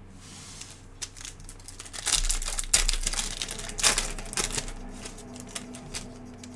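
Shiny wrapper of a Panini Donruss Optic basketball card pack crinkling and tearing open, loudest about two to four seconds in. Scattered clicks and rustles follow as the cards are slid out and handled.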